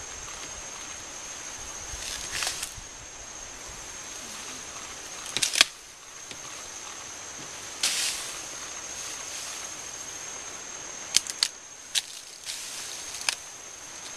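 Mountain gorilla breaking and tearing bamboo stems: a string of sharp cracks with rustling, the loudest about five and a half seconds in and several more close together near the end. A steady high insect drone runs underneath.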